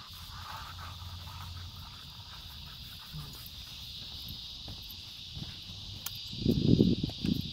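Steady, high-pitched chorus of insects droning, with louder, irregular scuffing and rustling noises near the end.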